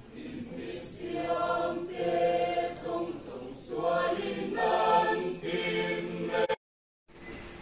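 A small vocal ensemble singing unaccompanied in harmony, holding chords in phrases of about a second each. The singing cuts off abruptly near the end.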